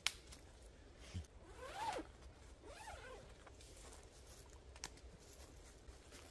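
A zipper being pulled in two strokes, each rising then falling in pitch as the pull speeds up and slows, with a sharp click just before. Scattered small clicks and rustles follow as the tent is taken down.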